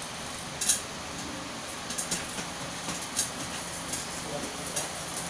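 Steady hiss of a lit gas stove burner under a metal pot, broken by a handful of sharp clicks, the loudest about half a second in.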